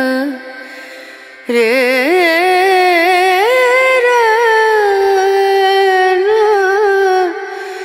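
Music with a solo voice singing a slow, ornamented melody with wavering held notes. One phrase fades out just after the start, and a new one comes in about a second and a half in and carries on until near the end.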